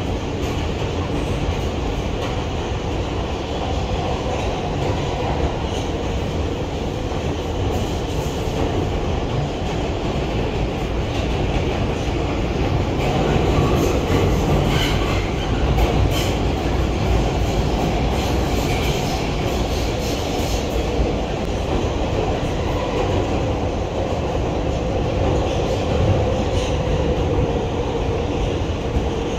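R160B Siemens subway car running at speed, heard from inside the car: a steady rumble of wheels on rail with clicks over the rail joints, a little louder in the middle stretch.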